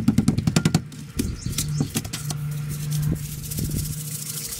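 A hand rapidly patting salt into a raw hog backstrap on a plastic cutting board, about ten quick pats a second for the first second. Scattered light taps follow, and salt is shaken from the container near the end, over a steady low hum.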